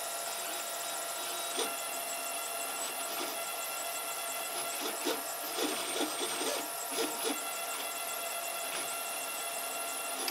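FDM 3D printer running, its stepper motors whining steadily as the print head moves. A click about one and a half seconds in and a run of ticks from about five to seven and a half seconds come from the loose cogwheels of the filament feed mechanism, which the owner takes as a sign the retractions are not working well.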